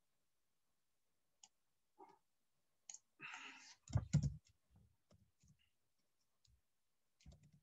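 Computer mouse clicks and keyboard keystrokes, sparse and quiet, with a short rustle and two louder thumps about four seconds in; a run of faster typing starts near the end.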